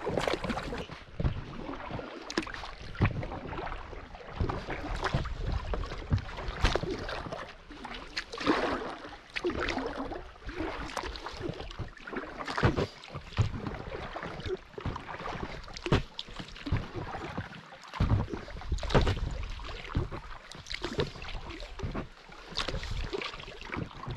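Paddle strokes in the water from an inflatable pack raft crossing a river: irregular splashes and drips with scattered sharp knocks.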